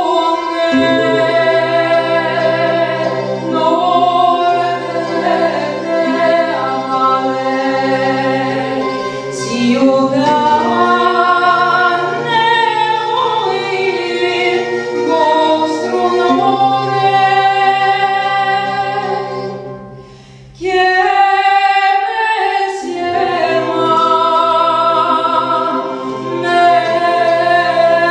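A woman singing a slow medieval-style song in long, wavering held notes over a steady low drone. About twenty seconds in the sound briefly falls away, then the voice and drone come back in.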